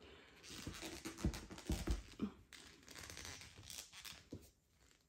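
Rustling and scraping of thick T-shirt yarn being pulled through stitches with a large plastic crochet hook, with a couple of soft low bumps about a second and a half in.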